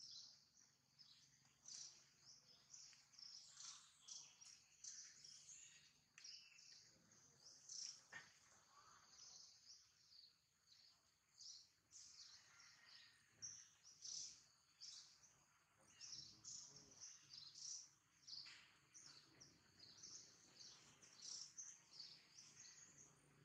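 Faint, busy chirping of small birds, many short high calls overlapping without pause.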